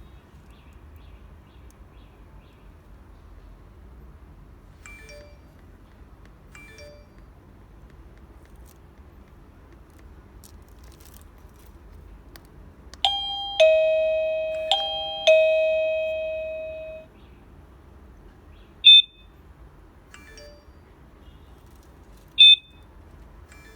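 Electronic doorbell chime of a Tuya PST-H3 WiFi siren alarm: a two-tone ding-dong, high note then a fading lower note, played twice in quick succession a little past halfway. Two short, sharp high beeps follow a few seconds apart.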